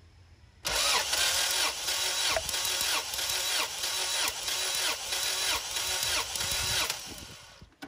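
A Honda H22 2.2-litre DOHC four-cylinder being turned over by its starter motor, without firing, for a compression test on cylinder two. The throttle is held wide open. The cranking is steady and rhythmic, its whir falling in pitch about twice a second. It starts just under a second in and stops about a second before the end.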